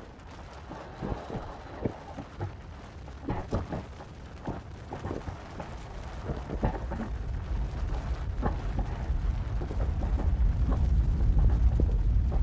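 Volcano erupting: irregular sharp bangs and crackles over a deep rumble that grows steadily louder in the second half.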